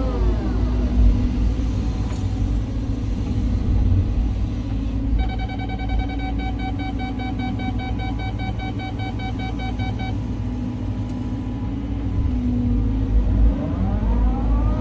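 Caterpillar 323 excavator's diesel engine running under load with a low rumble, its pitch rising and falling near the start and again near the end as the machine works. For about five seconds in the middle a rapid electronic warning alarm beeps several times a second.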